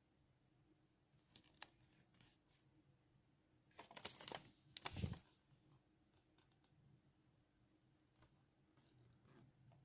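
Quiet handling of a small plastic device and its packaging during unboxing: scattered light clicks, then a louder burst of rustling ending in a soft thump about four to five seconds in.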